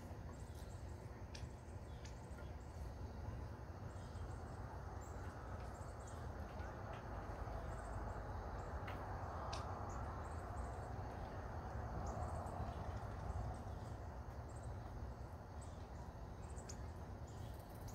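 Faint backyard ambience at dusk: short high-pitched chirps repeating in small groups and a few sharp chip calls, over a steady low rumble and a soft hiss that swells in the middle.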